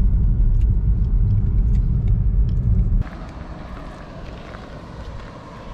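Low rumble of a car's engine and road noise heard inside the cabin while driving. About three seconds in it cuts off abruptly to a much quieter background hiss with a few faint clicks.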